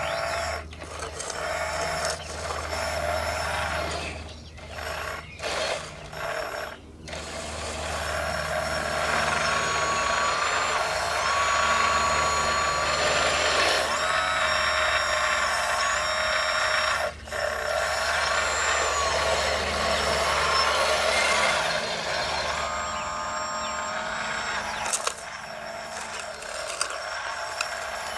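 Small electric motors and hydraulic pumps of 1:16 RC construction models whining as they work, the pitch of several tones stepping up and down as the machines speed up and slow, with a few brief cut-outs in the first seven seconds. A low hum runs under it until about three-quarters of the way through.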